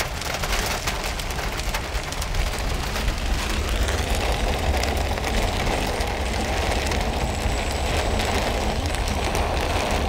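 Heavy rain pelting the car's roof and windshield, heard from inside the cabin: a dense, steady patter of drops over the low rumble of the engine and tyres on the wet road.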